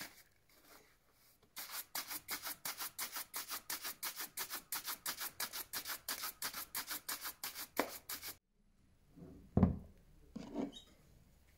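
Bristle shoe brush buffing a waxed leather shoe in fast, even back-and-forth strokes, about five a second, after a short lull. The brushing stops sharply, and a thump and a couple of lighter knocks on the wooden bench follow.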